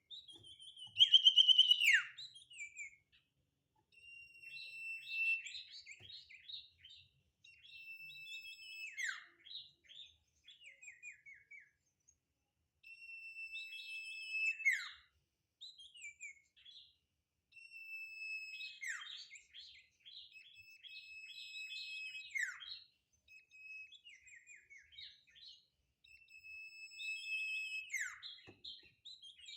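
A sirtu songbird singing vigorously: repeated phrases every four or five seconds, each a held high whistled note that drops in a steep falling slur into a quick run of chattering notes. The first phrase is the loudest.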